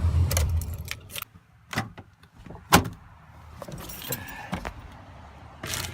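Pickup truck engine running, then switched off about a second in. Keys jangle, and a few clicks and knocks follow, the loudest a single sharp thump near the middle.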